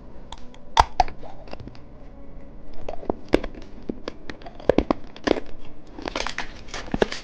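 Plastic candy packaging crinkling and tearing as it is handled and opened: irregular crackles and rustles that get busier near the end.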